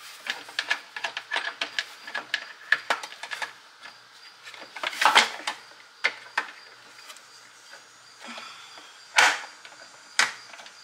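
Hands fitting parts of a tomato strainer attachment onto a Cabela's heavy-duty meat grinder: a quick run of small plastic and metal clicks and taps, then a few louder, longer handling noises about halfway through and near the end.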